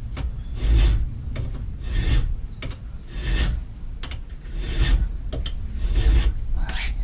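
Hand file worked in even back-and-forth strokes, about six of them, filing a post leg vice part down flush with the jaws.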